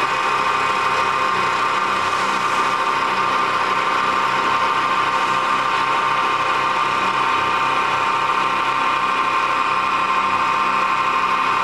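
CNC wood turning lathe running steadily, a continuous machine drone with a steady high whine.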